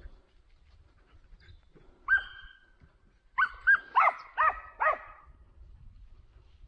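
Boar-hunting dog barking: a single bark about two seconds in, then a quick run of five barks a second later.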